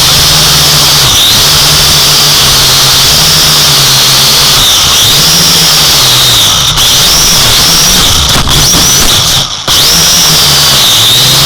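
Drone motors and propellers whining, their pitch rising and falling every second or two as the throttle is worked in flight. The sound briefly cuts out twice near the end.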